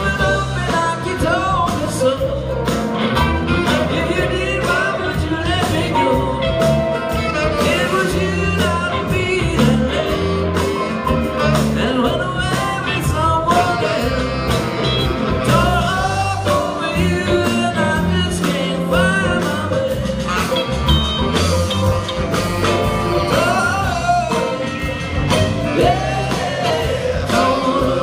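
Live band performing a song: a lead vocal over acoustic and electric guitars, bass and drums, heard from the audience with the hall's echo.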